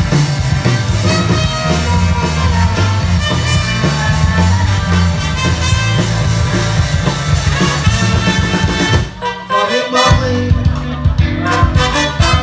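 Live punk band with a horn section playing loud through a PA: trumpet and trombone over distorted electric guitar, bass and drums. The band drops away briefly about nine seconds in, then comes back in on hard drum hits.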